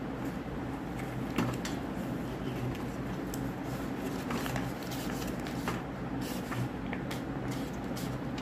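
Utility knife blade slicing and shaving a bar of pink Lux soap: irregular short scrapes and clicks as the blade cuts and the thin soap slices break off, over a steady low hum.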